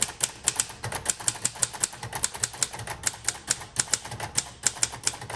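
1956 Royal Quiet De Luxe manual typewriter being typed on at a steady, fast pace: a run of sharp keystroke clacks, about six a second, as the typebars strike the platen.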